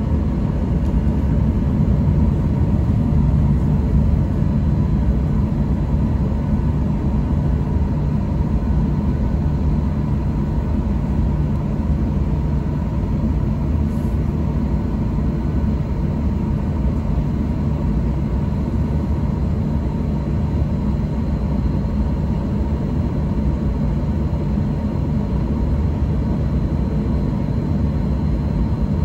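Cabin noise inside a Boeing 737-800 on the ground before takeoff: a steady low drone from its CFM56 engines at idle and the air conditioning, with a faint steady whine above it.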